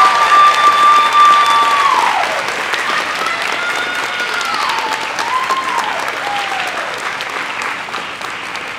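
Audience applauding and cheering for an award winner. Long, high held whoops and calls stand out over the clapping in the first half, and the applause gradually dies down.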